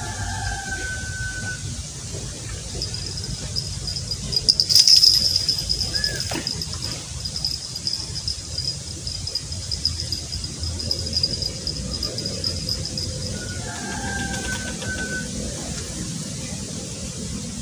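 An insect trills steadily at a high pitch, stopping about three-quarters of the way through, over a low outdoor rumble. Short whistled calls come at the start and again near the end, and a brief loud rustling burst comes about five seconds in.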